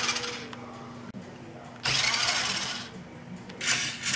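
Toy RC car's small electric drive motor and gears whirring in short bursts as its wheels spin off the ground. One burst fades out in the first half-second, another comes about two seconds in and lasts about a second, and two brief ones come near the end.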